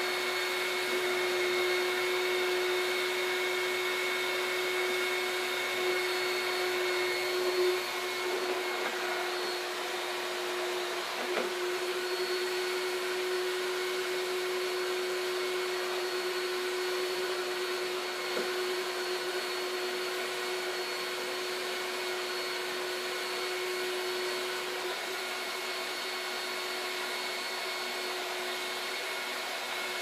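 Panasonic Jet Flo MC 771 canister vacuum cleaner running steadily, its motor hum and whine holding one pitch as the floor nozzle is pushed over carpet.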